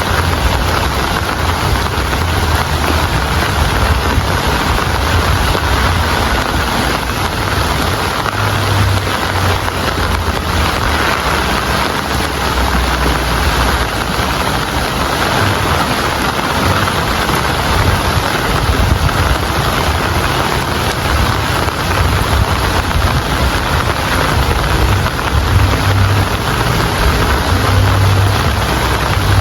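Steady heavy rain, a dense even hiss, with a low rumble underneath that swells now and then.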